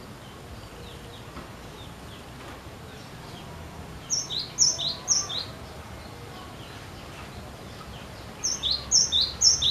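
Cinereous tit (glatik batu) singing, a rapid repeated two-note phrase, each a high note dropping to a lower one. Three phrases come about four seconds in and four more near the end. Fainter high calls come earlier.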